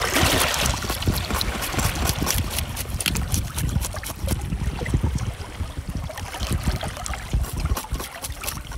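Wind buffeting the microphone over splashing sea water, a steady rumbling rush with irregular crackles.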